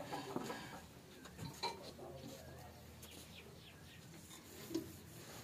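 A few light metallic clinks and knocks from handling the mill's drive belt and pulley, with faint bird chirps in the background.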